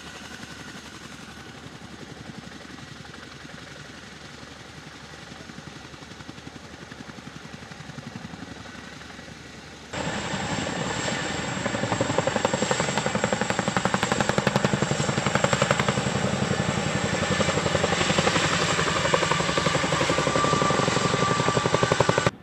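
CH-47 Chinook tandem-rotor helicopter running with its rotors turning, at a moderate level. About ten seconds in it cuts to Chinooks in flight, much louder, with a rapid rotor beat and a steady high turbine whine.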